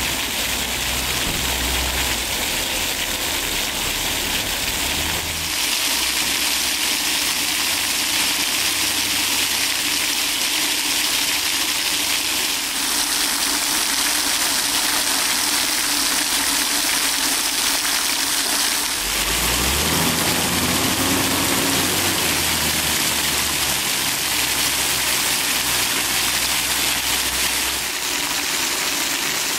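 Fountain jets splashing steadily onto wet brick paving, a dense hiss of falling water whose tone shifts abruptly a few times where the shots change. A low hum runs beneath it in some stretches.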